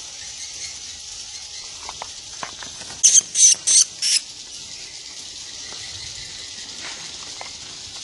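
A swiftlet held in the hand giving four shrill, very high squeaks in quick succession about three seconds in, over a steady high hiss.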